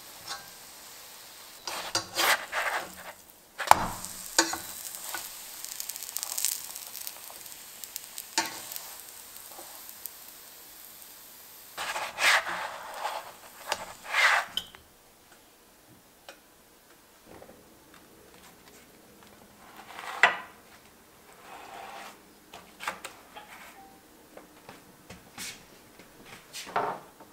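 Crunchwrap frying in a stainless steel skillet: a soft sizzle under repeated scrapes and knocks of a plastic slotted spatula against the pan, with one sharp knock about four seconds in. The sizzle fades after about fifteen seconds, leaving only a few scattered knocks.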